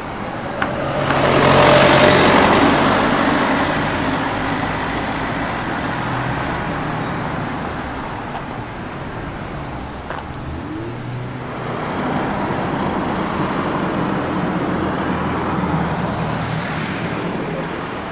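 Road traffic: a motor vehicle passes about two seconds in, its engine and tyre noise swelling and fading, and a second vehicle passes more slowly later on.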